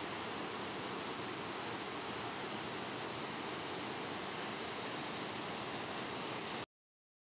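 Waterfall rushing steadily, the water pouring over a rock ledge into a gorge in full monsoon flow; the sound cuts off suddenly near the end.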